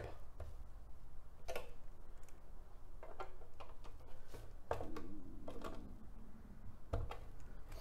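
Hand screwdriver driving small screws into a plastic glove box insert until they seat, with scattered light clicks and taps of the tool and the plastic parts.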